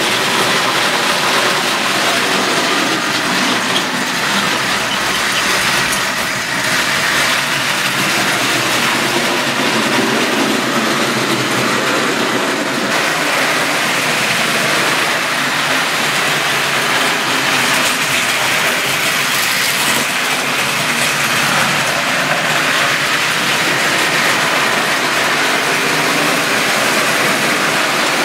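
Tri-ang model trains running on the layout's steel track, a steady, unbroken noise of small electric motors and wheels on the rails.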